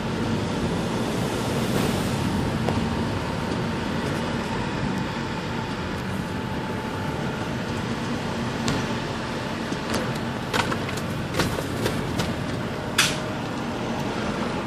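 Motor vehicle running, a steady engine hum with road noise. A few sharp knocks come in the last third, the loudest about two seconds before the end.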